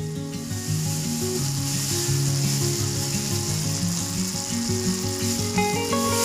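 Sambal goreng of tempe and blood cockles sizzling as it fries in a pan, a steady high hiss that rises about half a second in.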